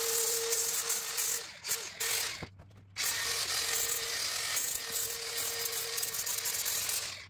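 DeWalt cordless power tool running against chicken wire, a steady whine under a harsh hiss. It runs in two long bursts with a short break about two and a half seconds in.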